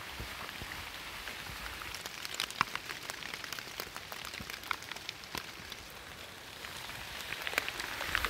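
Light rain falling in forest: a steady hiss with scattered sharp ticks of drops landing close by.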